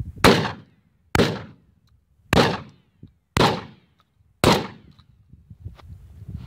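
Shotgun fired five times in quick succession, about one shot a second, each blast trailing off in a short echo.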